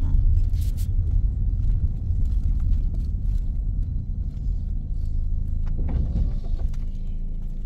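Car driving: a steady low rumble of engine and road noise, with a few faint ticks.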